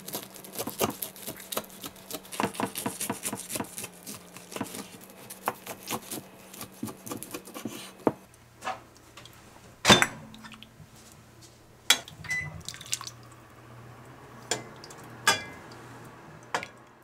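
A knife crunching through the crispy breaded crust of a cheese-filled pork cutlet on a wooden cutting board, a dense run of crackly crunches. About eight seconds in, this gives way to a few separate clinks of a ceramic bowl and a saucepan over a low steady hum.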